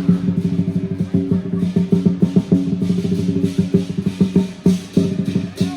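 Lion dance drum beaten in fast, dense rolls, with steady ringing tones under the strokes.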